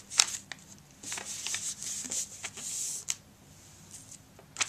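A sheet of paper being folded and creased by hand on a tabletop: a sharp crinkle just after the start, then about two seconds of rubbing and scraping as fingers press the crease flat, then mostly quiet with one short crackle near the end.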